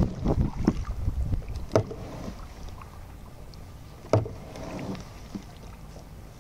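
Kayak being paddled, with scattered small ticks and two sharp knocks about two seconds apart, like a paddle striking the hull. Wind rumbles on the microphone during the first second.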